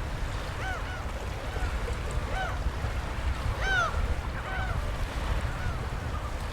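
Birds calling in a series of short arching notes, the loudest about halfway through, over a steady low rumble of wind and water.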